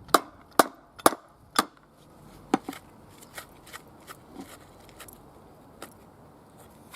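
Sharp knocks, like hammer blows, about two a second for the first couple of seconds, then a few fainter scattered knocks. They come while a stuck part of a washing machine that will not turn is being worked loose.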